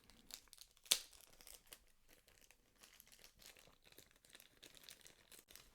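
Faint crinkling of plastic packaging being pulled off by hand, with one sharp click about a second in.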